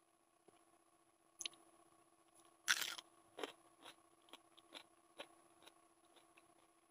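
A person eating, mouth close to the microphone: one loud crunchy bite, most likely into a raw whole onion, a little under three seconds in, then scattered lighter crunches and clicks of chewing.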